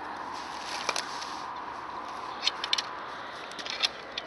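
Sharp clicks and small rattles from a spinning reel and rod being handled while a light float rod is rigged, several close together in the second half. Under them runs a steady hum of traffic from a nearby highway.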